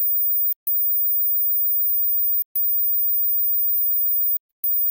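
A single steady, very high-pitched sine tone near the upper limit of hearing: a 'mosquito' hearing-test tone meant to be heard only by younger ears. It drops out briefly three times, and faint clicks mark the breaks.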